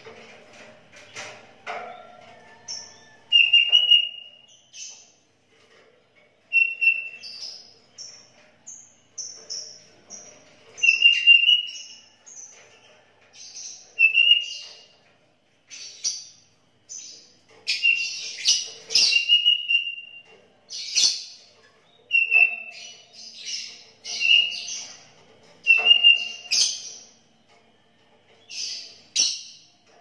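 Caged sooty-headed bulbul singing lively short whistled phrases, one every second or two, mixing clear notes with higher chirps.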